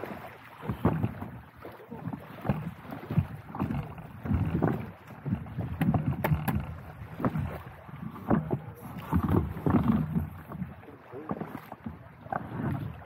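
Small waves lapping and slapping against a paddle board's hull in irregular splashes, roughly one or two a second.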